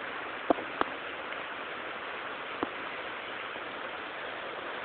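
Steady hiss of billiard-hall room noise, with three short sharp clacks of pool balls striking each other: two close together about half a second in and one past the middle.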